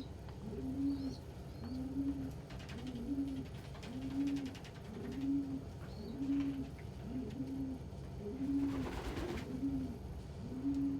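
Domestic pigeons cooing, a steady run of low coos about one a second. A short rustle, such as wings, near the end.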